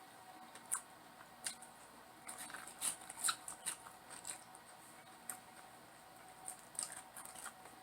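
A person eating close to the microphone: faint, irregular crisp crunches and mouth clicks of chewing.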